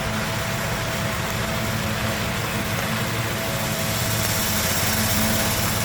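A steady motor hum under an even rushing hiss, unchanging throughout.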